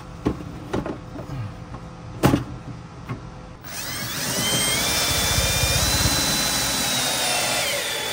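A few sharp knocks, then a power drill spins up, runs steadily for about four seconds driving a screw, and winds down near the end.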